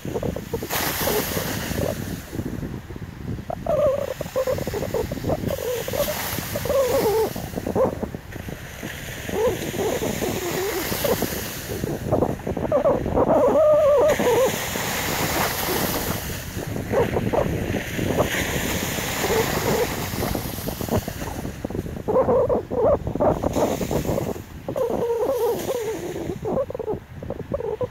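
Slushy, partly frozen sea water washing in at the shore, with wind noise on the microphone. The sound swells and fades, and a wavering higher sound comes and goes over it.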